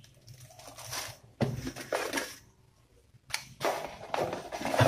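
Plastic wrapping and a cardboard box being handled as the box is unpacked, in three rustling bursts with short pauses between them.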